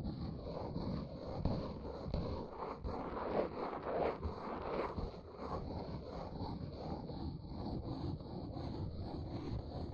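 Close-miked ASMR scratching and rustling, a dense continuous texture that swells a little in the middle.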